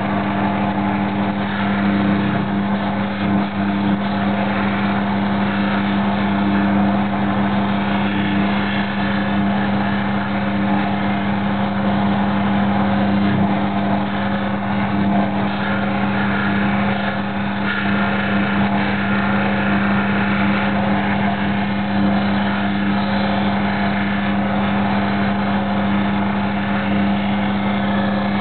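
Multi-wheel lapidary grinding machine running steadily, its motor giving a constant low hum under a wash of grinding noise, as a Yowah-nut boulder opal is ground on its wheels.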